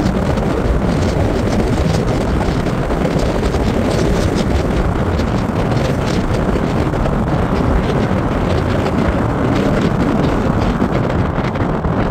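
Wind buffeting the phone's microphone: a loud, steady, rough rumble with crackling gusts.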